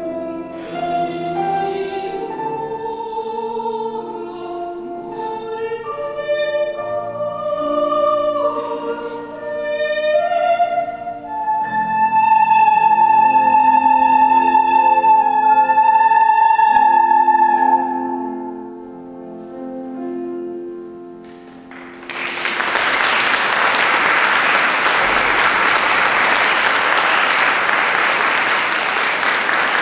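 A woman singing in operatic style to grand piano accompaniment, rising to one long held high note; the piano plays a few closing chords alone. About three-quarters of the way through, the audience applauds.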